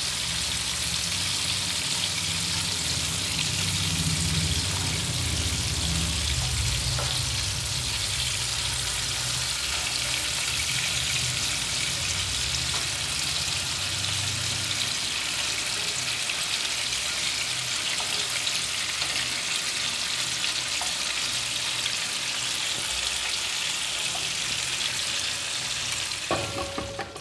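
Marinated chicken pieces sizzling steadily as they shallow-fry in hot oil in a frying pan, with a few faint clicks; the sizzle cuts off suddenly just before the end.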